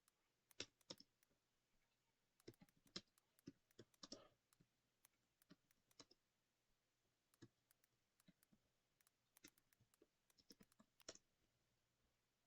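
Near silence with a dozen or so faint, irregular clicks, like a computer mouse and keyboard being used.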